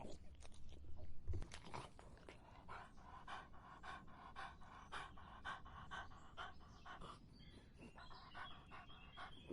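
A dog lapping water with its tongue, a steady run of quick laps at about three a second.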